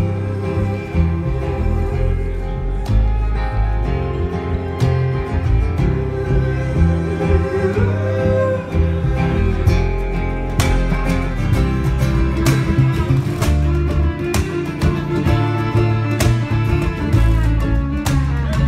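Live acoustic string band playing an instrumental passage: strummed acoustic guitar, fiddle and a deep upright bass line, with sharp percussive strikes joining about ten seconds in.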